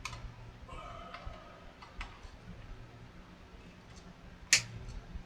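Small tools clicking and tapping against a vintage radio chassis during bench repair work, a few scattered clicks with one sharp, loud click about four and a half seconds in, over a steady low hum.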